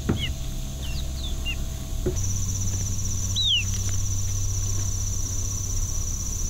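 A few short, high, falling bird chirps over a low steady hum. About two seconds in, a steady high insect trill starts, and one more chirp follows.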